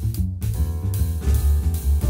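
Instrumental background music with a beat and a strong bass line.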